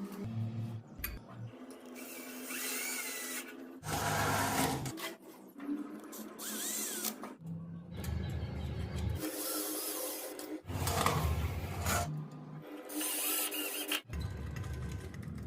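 A small electric motor running a homemade machine with a steady hum, heard in a string of short clips that start and stop abruptly every second or two.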